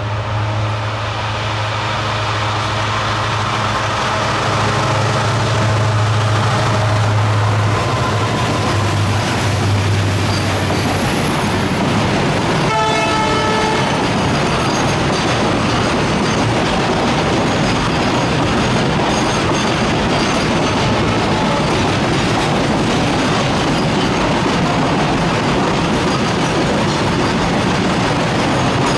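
WDG4 diesel locomotive's 16-cylinder two-stroke EMD engine drones as it runs past hauling a heavy freight train, with a high turbocharger whine that falls and fades away. About 13 seconds in a brief horn toot sounds, then the long rake of loaded flat wagons rolls by with a steady rumble and wheel clickety-clack.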